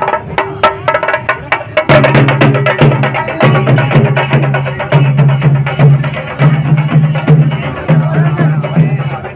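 Music with percussion: a quick run of sharp, clicking beats, then from about two seconds in a steady beat with a pulsing bass line and hits on top.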